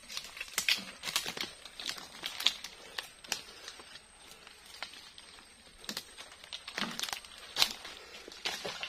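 Footsteps crunching through dry leaf litter, twigs and fallen palm fronds, with branches and leaves brushing past: irregular sharp crackles and rustles.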